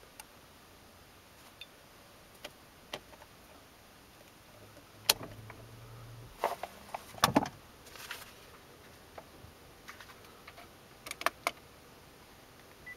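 Scattered clicks, taps and knocks from a hand handling things at a car's centre console, with a cluster of sharper knocks in the middle and a few quick clicks near the end. A faint low hum sounds briefly in the middle.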